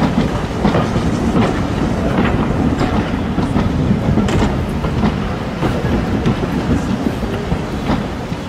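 Railway passenger coaches' wheels clacking over rail joints with a steady rumble as the train passes and draws away, slowly fading.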